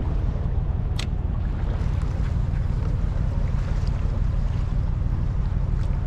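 Steady wind noise on the microphone over choppy open water, with one sharp click about a second in.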